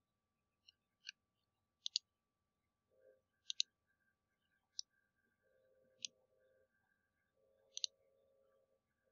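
Faint computer mouse clicks, single and in quick pairs, about one a second, as cut lines are selected in the modelling program. A faint hum comes and goes between some of the clicks.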